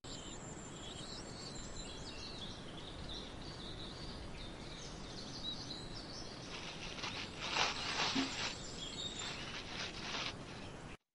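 Steady outdoor background noise with high chirping calls. From about six and a half seconds in, a thin plastic bag is crinkled and rustled as hands open it; this is the loudest sound, and it stops sharply near the end.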